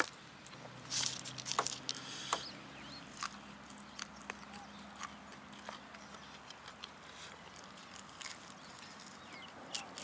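Eating crispy fried chicken: scattered small crunches and clicks from chewing and from tearing skin and meat off the bones, with a denser crackle about a second in. A faint low hum runs under the first half.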